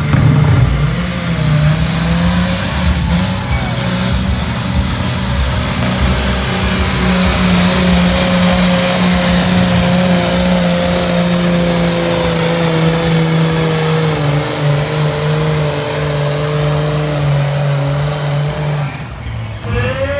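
Diesel engine of a Pro Stock pulling tractor at full throttle, dragging the weight sled. It revs up at the launch, holds high and steady for the length of the pull, then backs off near the end.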